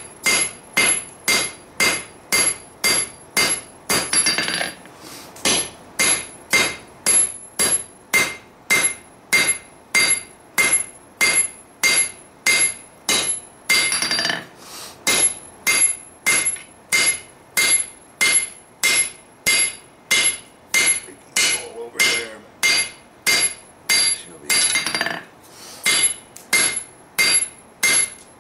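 Hand hammer striking a red-hot steel sword blade on an anvil, about two ringing blows a second with short breaks every ten seconds or so. The smith is drawing out the claymore blade to length.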